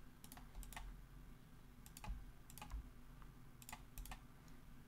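Faint clicking of a computer mouse and keyboard, about a dozen sharp clicks, several in quick pairs like double-clicks.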